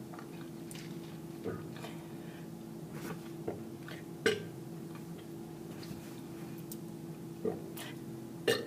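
A person trying to burp, with short gulps and small burps: about five brief sounds, the loudest a little before halfway.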